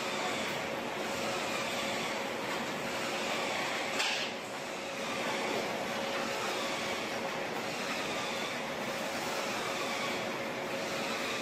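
Factory-floor noise of a tuna-processing line: the conveyor belt and machinery running with a steady hum, and a sharp clink about four seconds in.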